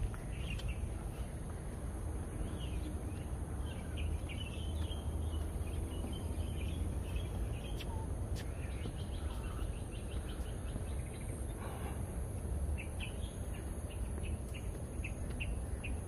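Birds chirping, many short calls scattered throughout, over a steady low rumble.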